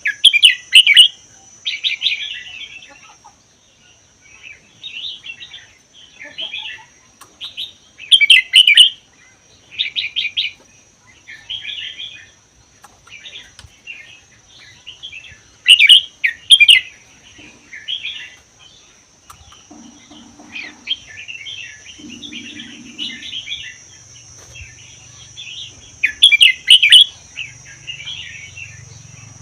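Red-whiskered bulbul singing short, bright warbled phrases every second or two, a few much louder than the rest, over a steady high-pitched whine.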